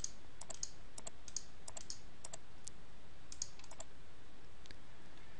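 Light clicking at a computer, from mouse buttons and keys, irregular and often in quick pairs, over a faint steady hiss.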